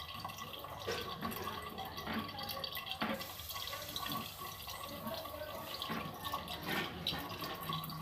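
Fruit pulp pressed with a spoon through a plastic strainer, juice dripping and trickling into a plastic jug, with faint scrapes and taps of the spoon on the strainer every second or so.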